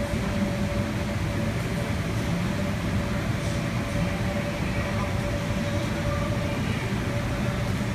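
Steady rumbling drone of the electric air blowers that keep inflatable bounce houses inflated, with a constant hum tone running through it.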